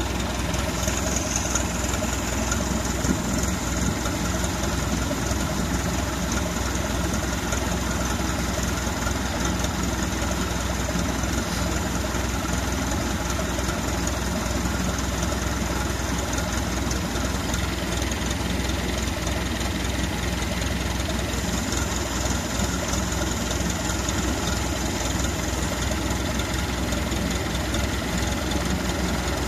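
Tractor engine idling steadily close by.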